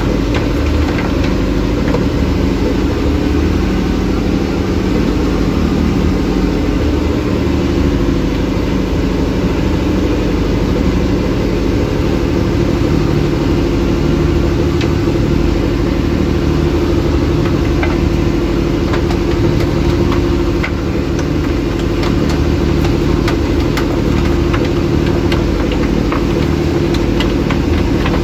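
Fishing boat's engine running steadily at a constant speed, a low hum of several steady tones. A scattering of light clicks and knocks sounds over it, more of them in the second half.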